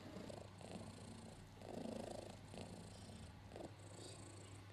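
A mother cat purring steadily while she nurses, with a fuller swell about two seconds in.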